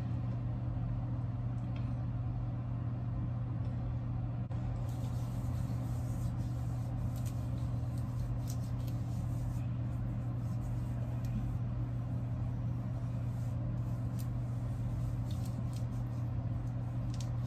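Steady low mechanical hum, with faint soft taps now and then as fingertips pat face oil into the skin.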